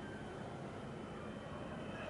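Steady outdoor background noise: a low rumble under an even hiss, with a faint steady high-pitched tone.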